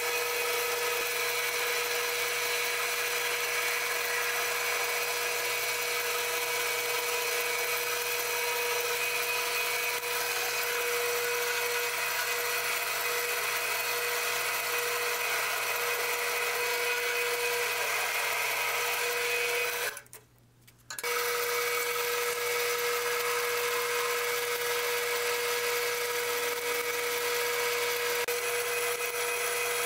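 Small metal lathe running steadily with a constant whine while a drill bit in the tailstock chuck bores into the end of a spinning oil-hardening steel bar. The sound cuts out for about a second two-thirds of the way through, then carries on the same.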